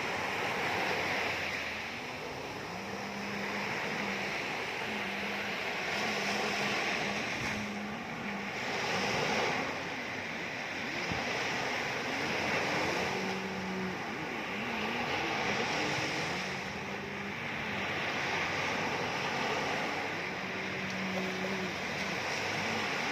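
Ocean surf: waves washing in with a steady hiss that swells and eases about every four seconds. Faint low held tones that slide in pitch run underneath.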